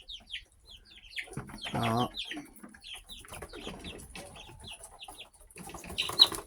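Young chickens peeping in rapid, short falling notes as they chase one another over a snatched bee, with a louder, lower call about two seconds in and a short loud burst near the end.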